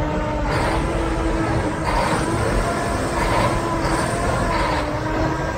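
Several Mack R-model semi trucks' diesel engines revving hard together, pouring black smoke: a dense, steady roar with pitched engine tones, surging up again roughly every second.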